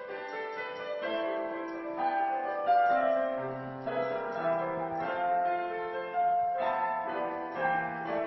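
Roland digital piano played with both hands: slow held chords with a melody moving above them, and a deep bass note about three and a half seconds in.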